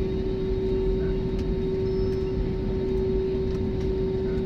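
Steady airliner cabin noise: a low rumble from the engines and airflow with a constant droning hum over it.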